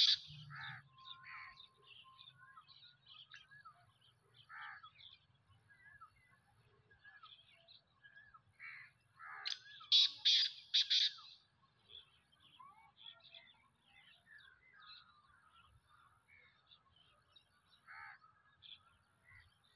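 Black francolin calling: a run of about six harsh, grating notes about halfway through, with the last notes of an earlier call right at the start. Smaller birds chirp faintly in between.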